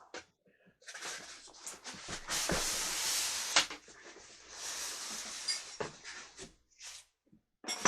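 Box packaging rustling and scraping, with a few knocks, as a stand mixer is worked out of its shipping box. The rustling comes in two main stretches, the longer one starting about a second and a half in.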